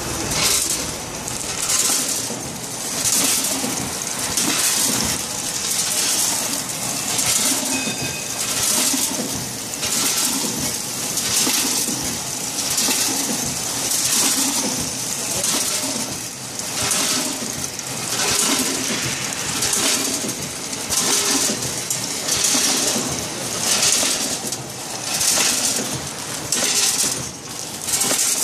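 Vertical snack packing machine with a measuring-cup filler running through its cycle: a hissing rush with rattling repeats about once a second over a steady mechanical clatter.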